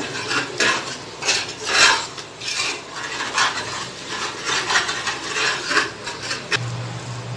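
Steel spoon scraping and stirring a thick masala in an aluminium pressure cooker, with quick strokes about two a second.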